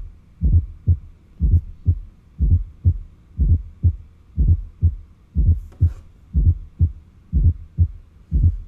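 Heart sounds with a fourth heart sound (S4, atrial gallop): low thuds about once a second, each first heart sound led by an extra sound just before it, giving an uneven, limping gallop. The extra sound comes from the atrial contraction at the end of diastole and is usually a sign of heart disease.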